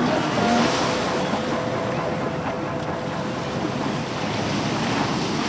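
Personal watercraft engines running, a faint steady whine over a loud wash of wind on the microphone and water noise.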